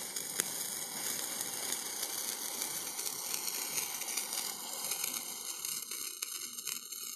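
Hand-held sparklers (phuljhari) fizzing as they burn: a steady hiss with many fine crackles, thinning a little near the end as they burn down.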